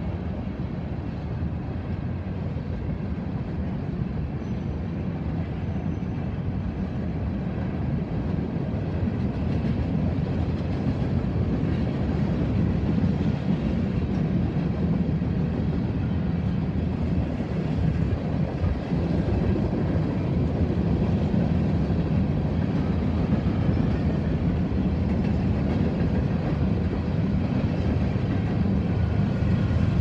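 Freight train of open hopper cars rolling past, a steady noise of steel wheels on rail that grows gradually louder.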